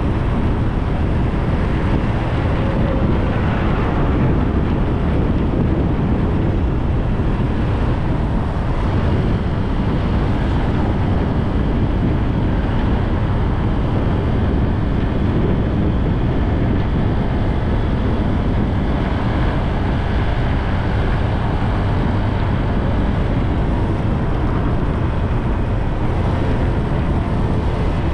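Steady wind rumble on the microphone, with road noise, from riding along a road.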